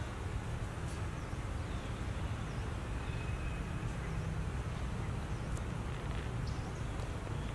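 Steady outdoor background noise with a low rumble, and a few faint, brief high bird chirps.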